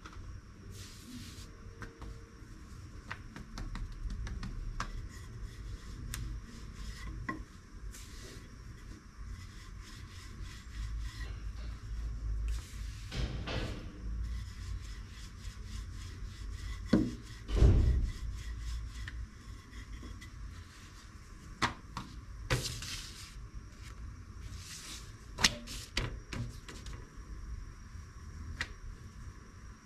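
Low, steady kitchen rumble with scattered light knocks and clatter of pans and utensils, the loudest knocks a little past halfway.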